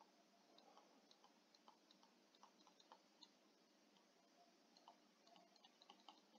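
Near silence, with faint scattered ticks of a stylus tapping and sliding on a tablet screen while handwriting.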